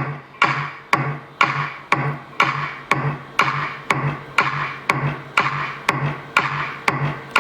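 Bass-boosted electronic music with a steady beat of about two hits a second, each hit carrying a strong bass note, played through an Adams Digital ESK665 6.5-inch midbass car speaker as a sound test.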